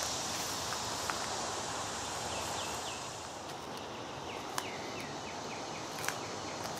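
Footsteps pushing through dense weeds and brush, with a few sharp snaps of twigs, over a steady high insect hiss that eases a few seconds in. A bird calls twice in quick runs of short falling notes.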